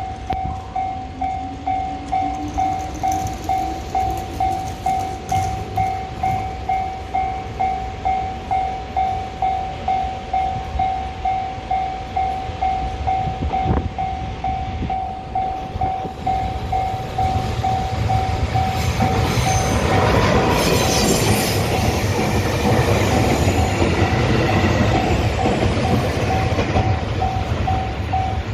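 Japanese level-crossing alarm ringing steadily, about two dings a second. From about 17 seconds in, the DE10 diesel locomotive and the railcars it tows pass the crossing: a low engine rumble with wheel noise, loudest around 20 seconds.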